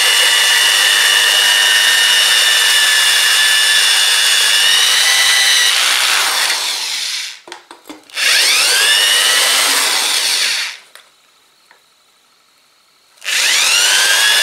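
Cordless drill running a core bit through the wall of a ceramic pot kept wet with water from a pressed sponge: a motor whine over a grinding hiss. It runs for about seven seconds, stops briefly, spins up again for a couple of seconds, pauses for about two seconds, then spins up once more near the end.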